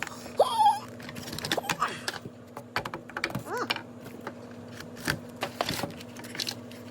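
Hands working on the plastic damper housing and wiring inside a refrigerator: a run of light plastic clicks and taps, with two short squeaks, one about half a second in and one about three and a half seconds in, over a steady low hum.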